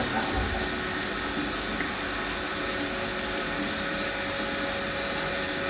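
Steady rush of cooling water jetting from the plate chiller's outlet pipe onto the floor drain, with a pump running under it as the chiller is cooled before the wort goes through. A faint steady hum joins about halfway through.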